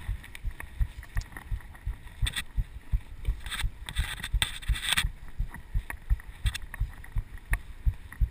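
Mountain bike ride on a dirt-and-gravel trail heard through a chest-mounted action camera: a steady run of low knocks, about three a second, as the camera jolts with the ride. A hissing rush of trail and wind noise comes in from about three and a half to five seconds in.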